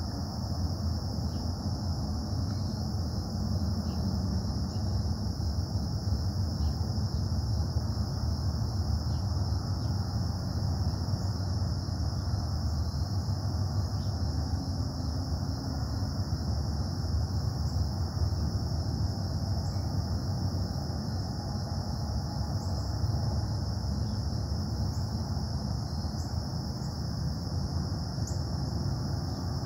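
Continuous low industrial rumble from a neighbouring metal-casting plant (Casting Solutions), carried across the woods, with a steady high-pitched buzz on top and a few faint chirps.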